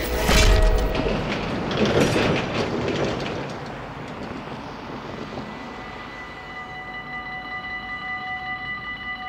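A loud rushing noise fades away over the first few seconds. About six seconds in, the Dutch level crossing's electronic warning bell starts ringing in a fast, even pulse, signalling that the crossing is closing for an approaching train.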